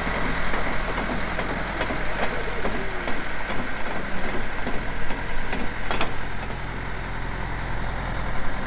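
Farm tractor engine running steadily at low revs, with a couple of short knocks about two and six seconds in.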